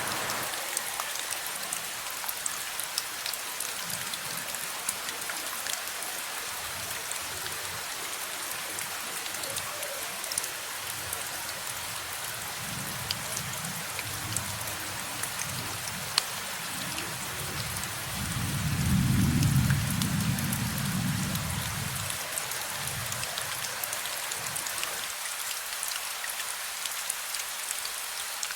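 Steady rain with many individual drops ticking. A low rumble of thunder swells about two-thirds of the way through and fades over a few seconds.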